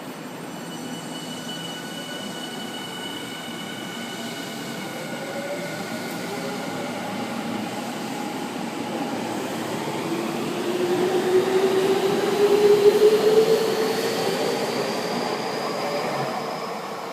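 Electric commuter train running at the platform, its motor whine gliding upward in pitch as it picks up speed. It grows louder to a peak about two-thirds of the way through, then eases off.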